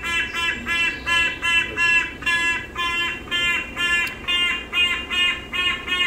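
A bird, which the visitors take for a hornbill, calling over and over without a break, about three or four short calls a second.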